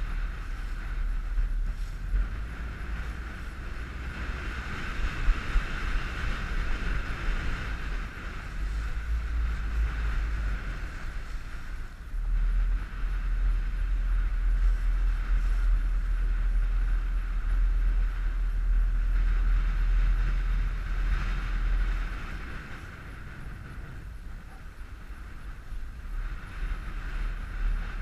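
Wind buffeting the microphone as a low rumble that swells and eases, over the steady running of a small motorboat's outboard engine under way.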